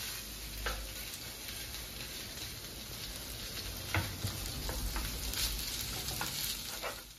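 Food sizzling and frying in a hot pan while being stirred, with several sharp clicks of the utensil against the pan. The sound cuts off suddenly at the end.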